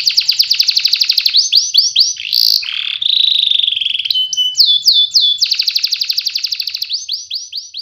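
Domestic canary singing a tour-based song: fast rolling trills of rapid repeated notes alternating with series of downward-slurred whistles, with a short buzzy tone about three seconds in. This is a tutor song played to set young birds singing.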